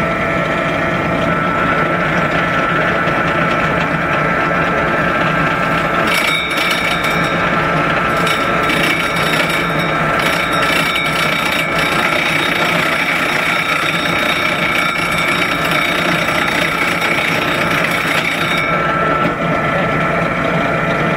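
Benchtop drill press running with a steady motor hum. About six seconds in, its 3-inch Milwaukee hole saw starts cutting through the sheet-metal cowl panel, adding a harsh grinding noise with high ringing tones. The cutting lasts about twelve seconds, then the press runs free again.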